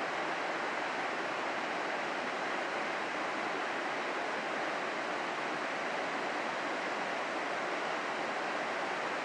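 Rocky mountain creek rushing steadily over boulders and small cascades: an even, unbroken rush of white water.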